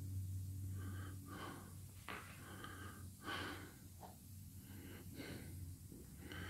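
Faint breathing of the person filming, close to the microphone, in short irregular breaths over a steady low hum.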